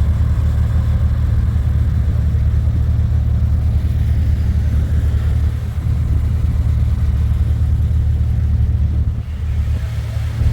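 Off-road vehicle engine running with a steady, loud low rumble, easing briefly near the end.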